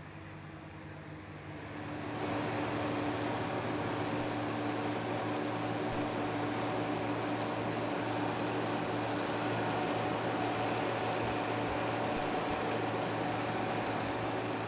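Potato harvester running steadily in the field: an even mechanical hum with a noisy wash over it, growing louder about two seconds in.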